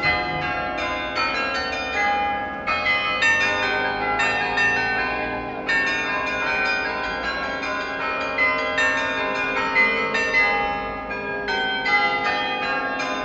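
Carillon playing a tune: many tuned bells struck in quick succession, several notes a second, their ringing overlapping.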